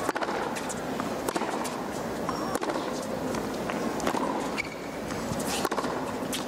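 Tennis rally on a hard court: the ball struck by rackets roughly every second and a half, with sneaker squeaks on the court surface and a low steady murmur from the crowd.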